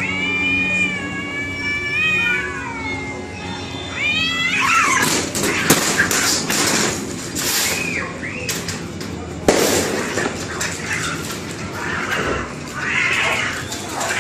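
Domestic cats caterwauling in a standoff: long, drawn-out yowls that waver up and down. About four and a half seconds in this breaks into a fight, with harsh screeches and scuffling, and one sharp bang about halfway through.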